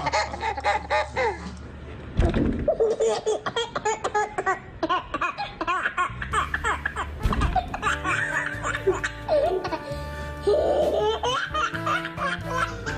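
Babies laughing over background music.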